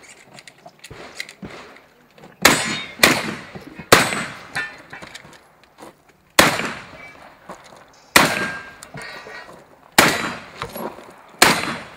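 Seven shotgun shots, three in quick succession and then four more spaced about two seconds apart, each ending in a short echoing tail.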